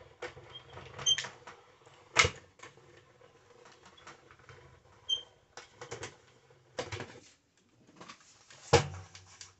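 Manual hand-cranked die-cutting machine being turned, the cutting plates and metal dies creaking and clicking through the rollers. There are several sharp clacks, the loudest about two seconds in and near the end.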